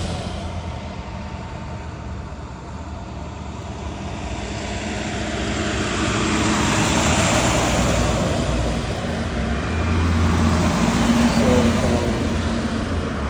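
Buses driving past one after another: engine drone and tyre noise, growing louder about halfway through and again near the end.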